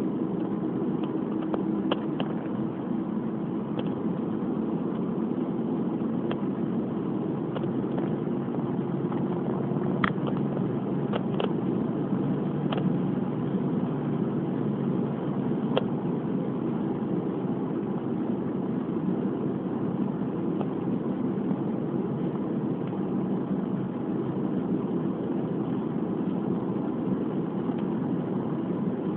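Steady road and engine drone inside a car's cabin at expressway speed. A few light clicks come through in the first half.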